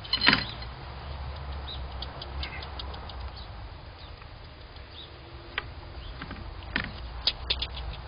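A fox squirrel moving about and feeding on a wooden feeder platform: a sharp knock just after the start, a few sharp clicks and knocks near the end, and some faint short high chirps between them, over a steady low hum.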